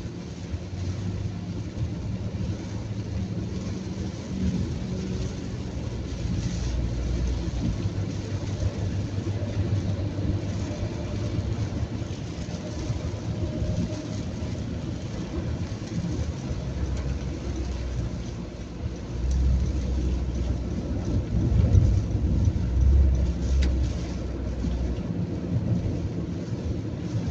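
A car driving at highway speed in heavy rain: steady low road and engine rumble with the hiss of rain and wet tyres. The low rumble grows louder for several seconds about two-thirds of the way through.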